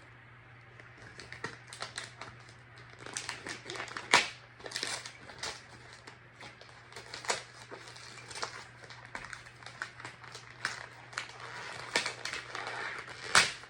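Gift packaging being opened by hand: irregular crinkling, rustling and sharp clicks of paper and tape, over a faint steady low hum.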